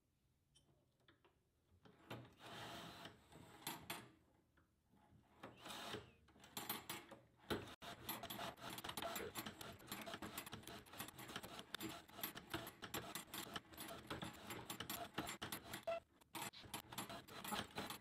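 Faint metallic clicking and rattling of a sawmill bandsaw blade being stepped through a Woodland Mills blade setter and set tooth by tooth. It starts about two seconds in and runs near-continuously from about six seconds in.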